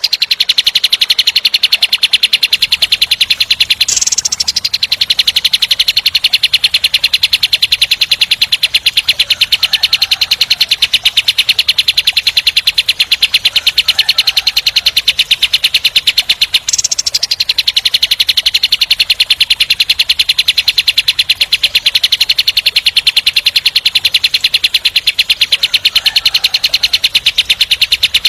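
Kapas tembak bulbul song used as a masteran track: a continuous fast, dense rattling trill of evenly repeated notes, the 'tembak speed rapat' delivery. Brief higher notes break in about 4 and 17 seconds in.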